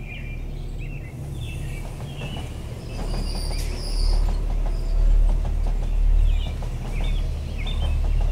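A train passing close by: a low rumble builds from about three seconds in and swells and ebbs in waves as the cars go past. Birds chirp over it at the start and near the end.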